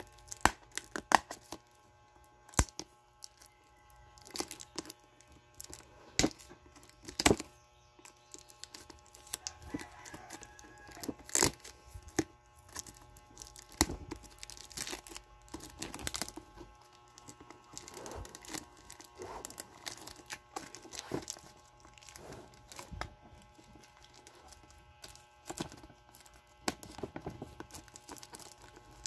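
Plastic shrink wrap being picked at, torn and peeled off a router's cardboard box: irregular crinkling with sharp crackles and snaps.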